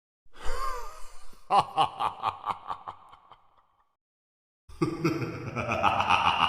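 Spooky horror laugh sound effect: a short breathy vocal sound, then a rapid staccato cackle of about five "ha"s a second that fades out. After a second's pause, a long drawn-out vocal effect starts near the end.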